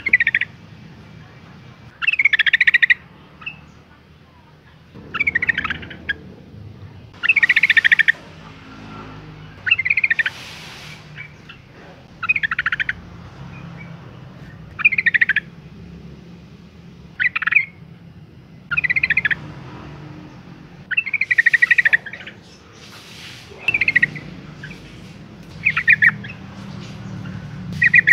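Yellow-vented bulbul calling in short, rapid chattering phrases, about a dozen of them, each under a second long and coming roughly every two seconds. The calls are billed as a female in breeding condition calling for a male.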